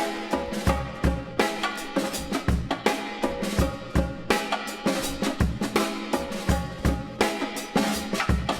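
Background music with a steady drum-kit beat: kick and snare hits under pitched instrument lines.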